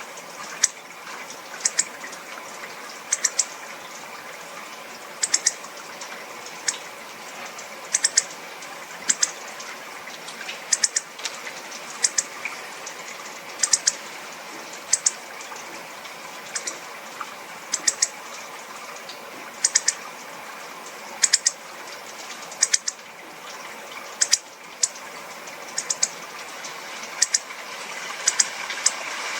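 Hawfinch giving short, sharp, high-pitched clicking calls, singly and in quick pairs or threes, every second or two, over a steady background hiss.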